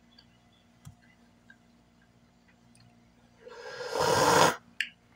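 A person slurping a drink from a porcelain cup: one loud sip of about a second, starting about three and a half seconds in, followed by a short click.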